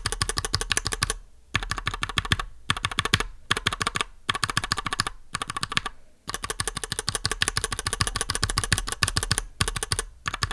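Everglide Jade tactile mechanical keyboard switches being pressed rapidly, about ten keystrokes a second, in several bursts with short pauses between them.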